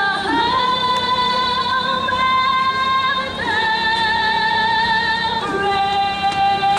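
A woman singing three long held notes with slight vibrato, each lasting about two to three seconds.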